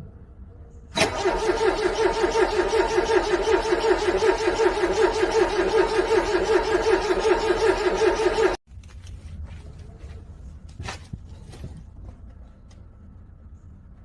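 Car's starter motor cranking a cold engine in a steady, even rhythm of about five beats a second for some seven seconds without the engine catching, then cutting off suddenly, with a few faint clicks after.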